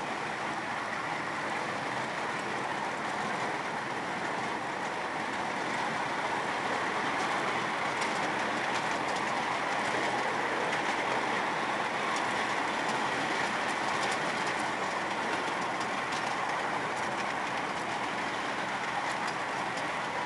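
Ride-on miniature train rolling along its track, heard from one of its riding cars: a steady rolling noise of wheels on the rails, with faint clicks through the middle and later part.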